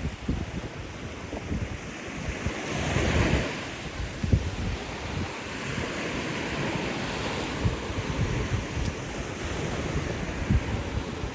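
Surf washing on a beach, with wind buffeting the microphone; the wash grows louder for a moment about three seconds in.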